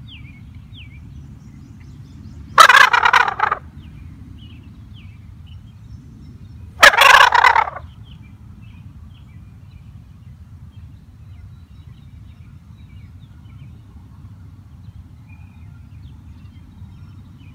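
Handheld shaker-style turkey gobble call, sounding two loud, rattling gobbles about a second long and roughly four seconds apart. Faint songbird chirps sound underneath.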